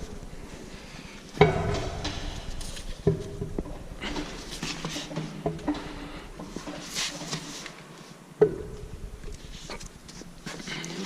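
Metal parts clanking and knocking: three sharp clanks with a short ring, about a second and a half, three seconds and eight and a half seconds in, with lighter clinks and rattles between them.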